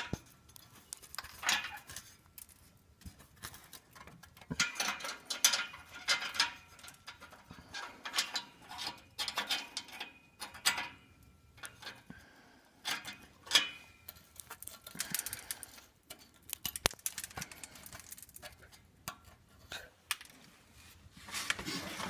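Light metallic clinks and scrapes in irregular bunches as the coil springs on a car's spring-loaded exhaust flange bolts are wiggled by hand against the rusty exhaust pipe. The owner takes this flange for the source of a metal rattling noise.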